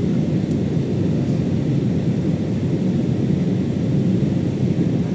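Steady low rumble of engine and airflow noise inside an airliner cabin in flight on its descent to landing.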